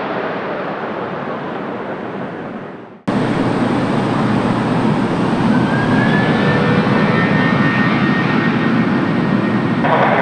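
Airliner jet engine noise: a Boeing 777-200ER's engines fading during its landing rollout, cut off abruptly and replaced by the steady, louder engine noise of an Airbus A321 on the runway. A faint whine rises in pitch a couple of seconds after the cut, and near the end the engine noise turns harsher.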